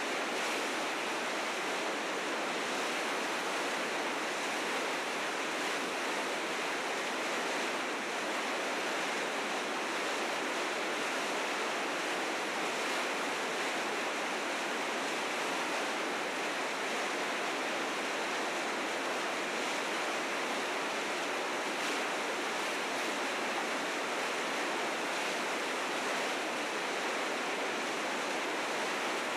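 River rapids in spring flood, fast white water rushing in a dense, steady wash of sound with no breaks.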